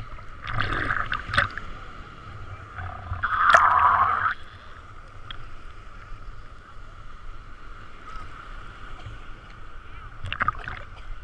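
Sea water sloshing and splashing around a handheld action camera held at the water line, with a louder surge of splashing about three and a half seconds in and smaller ones near the start and the end.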